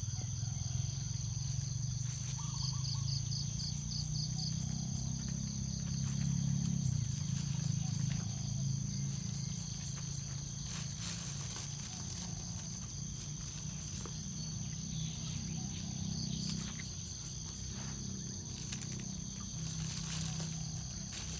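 Steady drone of insects, with a constant high whine, over a low steady hum that swells in the middle. A short run of rapid chirps comes a few seconds in, and faint scattered clicks follow later.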